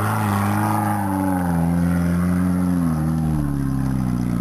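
Tube-frame off-road buggy's engine revving under load as it climbs a steep dirt slope. The engine note rises and falls several times as the throttle is worked.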